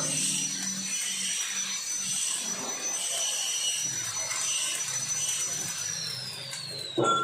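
A power tool's motor whines at a steady high pitch over rough working noise, then winds down with a falling whine near the end. A short knock comes just before the end.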